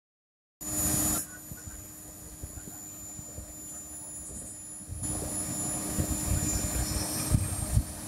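Asphalt paver's 8.8-litre Shangchai diesel engine running with a steady hum over a rough low rumble, which grows louder about five seconds in. A brief loud rush comes about half a second in.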